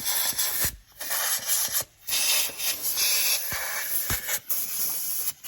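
Compressed-air blow gun hissing in several long blasts with brief breaks between them, blowing debris out of bolt holes.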